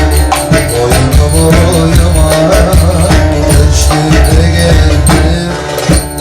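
Loud Turkish folk dance music in the Ankara style, with a heavy, driving beat and dense jingling cymbal strokes over a melody.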